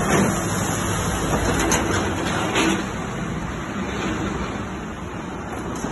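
City street traffic noise: a steady rumble and hiss, a little louder in the first few seconds.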